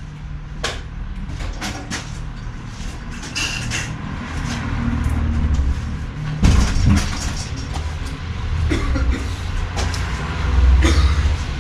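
A steady low rumble under scattered knocks and clatter of objects being handled at a workbench, with one sharp knock about six and a half seconds in and a louder clatter near the end.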